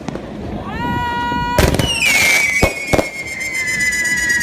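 Whistling fireworks going off: a short rising whistle, a sharp bang, then a long shrill whistle sliding slowly down in pitch, with a couple more bangs among it.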